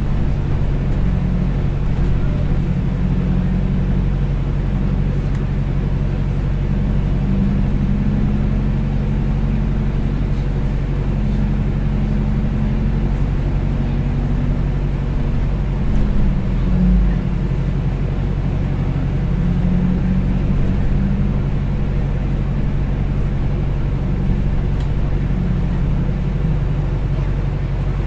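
A large engine running steadily, a deep, even drone with a slight waver in pitch and a brief swell about two-thirds of the way through.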